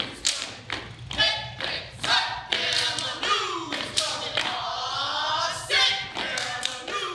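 People's voices, partly sung, over an irregular clatter of taps and thumps.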